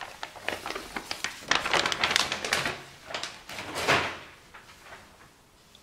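Thin plastic sheet crinkling and rustling as it is pulled off a pile of small objects: a run of crackles that peaks and dies away about four seconds in.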